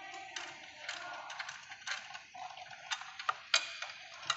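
Irregular sharp clicks and light knocks of metal parts and hand tools being handled, over a background hiss.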